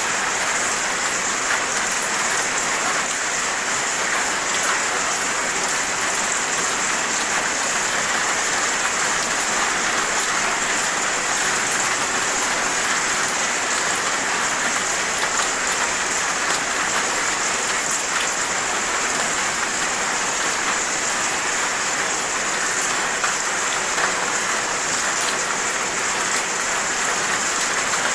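Steady rain falling on hard surfaces, an even hiss with many small drop ticks.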